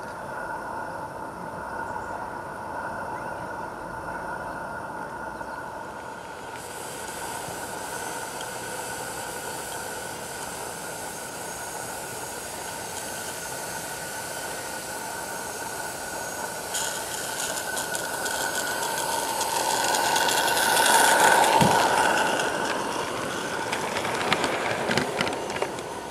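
A live steam G-scale garden-railway locomotive running past: steam hiss and running noise build up, are loudest about twenty seconds in, then ease off, with a run of sharp clicks near the end. A steady high ringing tone sounds through most of it.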